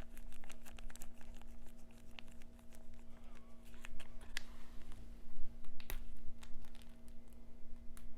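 Close-miked crinkling and rustling of plastic packaging, with many short clicks and taps, over a low steady hum.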